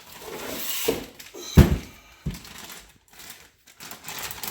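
Handling noises: plastic rustling with a few dull thumps, the loudest about a second and a half in.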